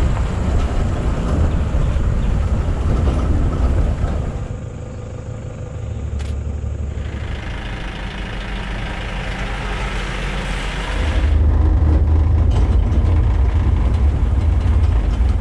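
Safari jeep engine running with road rumble, heard from the open-sided back of the jeep. The rumble drops back for a few seconds and comes up louder again about eleven seconds in.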